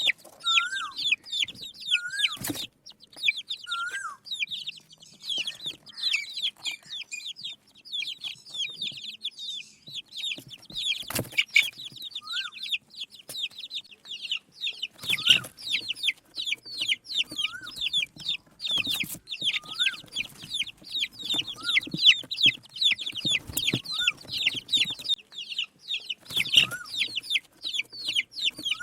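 A group of baby chicks peeping without a break: many short, high, falling peeps overlapping. A lower rising-and-falling call repeats every couple of seconds, and a few sharp knocks come through, one about two and a half seconds in, others near eleven and nineteen seconds.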